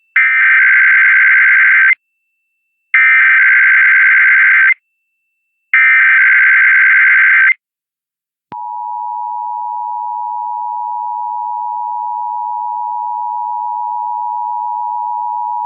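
Emergency Alert System monthly test: the SAME header, three identical bursts of buzzy digital data tones just under two seconds each with about a second between them, then the steady two-tone attention signal starting about eight and a half seconds in.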